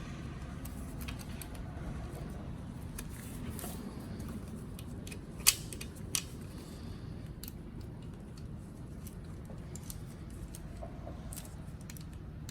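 Small metal clicks and clinks of hand tools and oil-line fittings being handled, with two sharper clicks around the middle, over a steady low hum.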